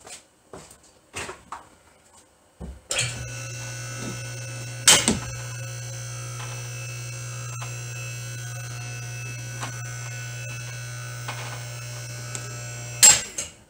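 Electric motor of a car lift running with a steady hum for about ten seconds while raising the car. There is a sharp clack about two seconds after it starts and another as it stops. Light knocks come before the motor starts.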